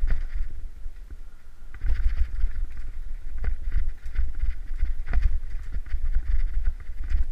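Downhill mountain bike running fast over a rocky trail: wind rumble on the camera microphone, tyres rolling over loose stones, and frequent knocks and rattles as the bike hits rocks. It eases off briefly in the first two seconds, then picks up again.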